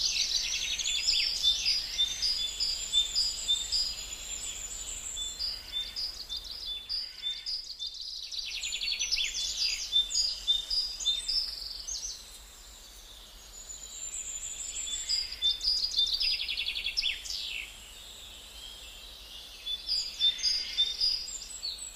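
Songbirds singing and chirping, with many quick repeated high notes and trills overlapping. The chorus drops away twice for a couple of seconds to a quieter background.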